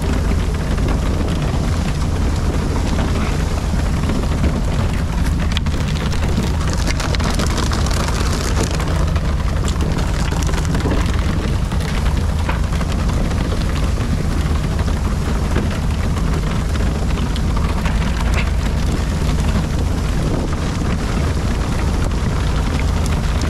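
Small fishing boat's engine running steadily, with water splashing and rushing against the hull.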